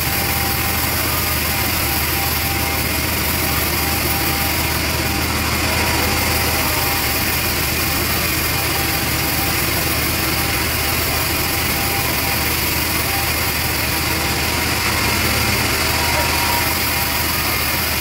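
Band sawmill running steadily while its blade cuts through a large trembesi (rain tree) log, a constant machine noise with no pauses.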